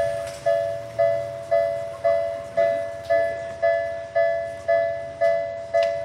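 Japanese railway level crossing warning alarm sounding its repeated two-tone clang, about two strokes a second, each stroke ringing and fading, warning that a train is coming. It stops near the end.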